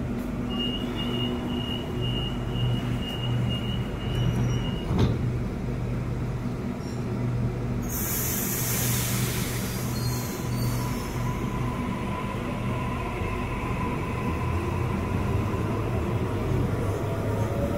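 Electric passenger train at a station platform, its motors and equipment giving a steady low hum. A thin high tone sounds for the first few seconds, then comes a loud hiss of air from the brakes about eight seconds in, followed by a thin whine.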